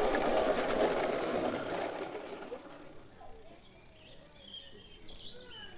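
A coal-fired live-steam garden railway locomotive running past, its rapid exhaust beats fading away over about three seconds.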